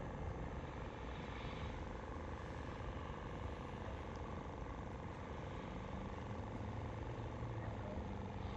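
A steady engine-like hum over an even background noise, unchanging throughout.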